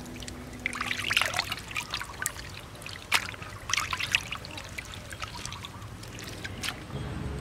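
Water splashing and trickling as hands rub, squeeze and lift raw pig intestines in a pot of water, a wet, irregular sloshing with small sharp splashes.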